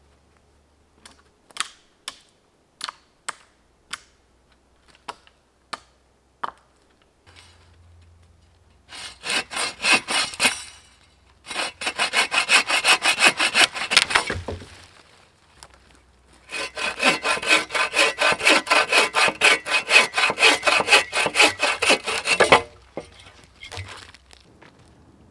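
Agawa Boreal21 folding bow saw cutting through a thin dead pole in fast back-and-forth strokes, about three a second, in three bouts with short pauses between, the longest about six seconds. Before the sawing, in the first six seconds, comes a scatter of sharp single cracks.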